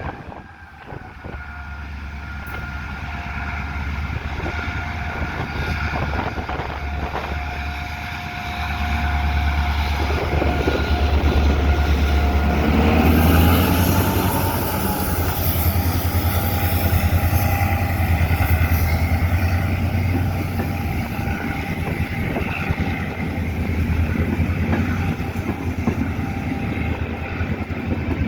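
Diesel train passing close: a low steady engine drone that grows louder about a third of the way in and peaks around the middle, then continues with wheels knocking over rail joints.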